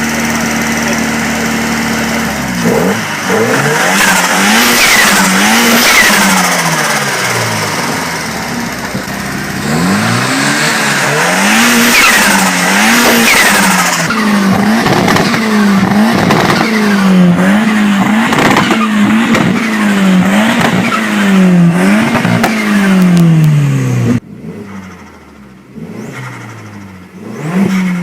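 Turbocharged car engine revved up and down over and over in quick blips, with the turbo whistling as it spools down and fluttering each time the throttle is lifted. Near the end the sound cuts to a quieter clip of another revving engine.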